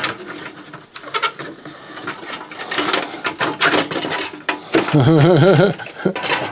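Irregular plastic and metal clicks and rattles as a CD player's drive mechanism and tray assembly are handled and worked loose from the sheet-metal chassis. About five seconds in, a man briefly hums or sings in a wavering voice.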